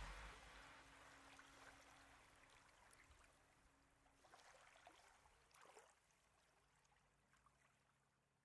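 Near silence: background music fades out in the first second, leaving faint hiss with two brief soft swells of noise about halfway through.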